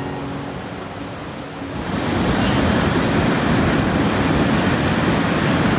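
Ocean surf breaking and washing up a sandy beach, with wind buffeting the microphone. For the first two seconds background music plays under the waves; it stops, and the surf gets louder.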